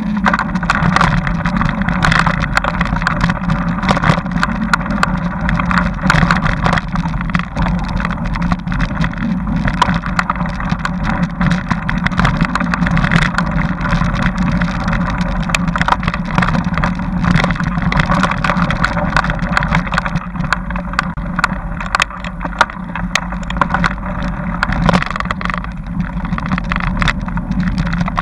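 Mountain bike riding fast over a dirt forest trail, heard from a bike-mounted camera: a steady rumble and rattle with constant small knocks and clatter as the wheels hit bumps and roots.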